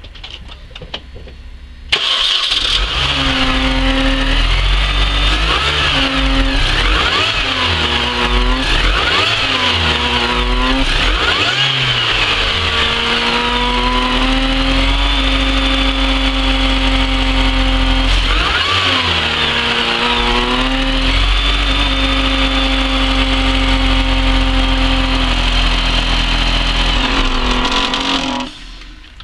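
2003 Mini Cooper S's supercharged 1.6-litre four-cylinder engine starting about two seconds in, revved up and down several times, idling, revved once more, then switched off near the end, with a steady high whine above the engine note. The owner hears a foghorn-like noise when the revs drop and at switch-off, which he suspects comes from the supercharger.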